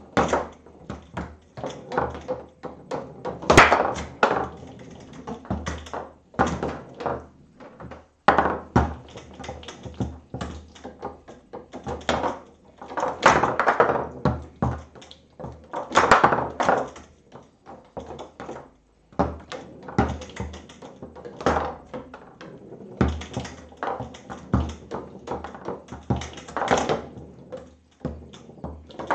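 Foosball table in play: the ball struck by the plastic men as the rods are worked, a run of irregular taps and knocks with a louder cluster of thunks every few seconds.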